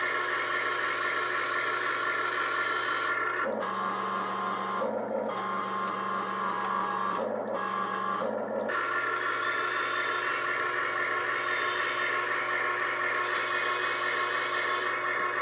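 Electric gear motors of a 1/12-scale RC excavator whining steadily as it works its arm. From about three seconds in to about nine seconds, a lower tone joins and the sound cuts out briefly three times, while the bucket pushes down and lifts the tracks off the ground.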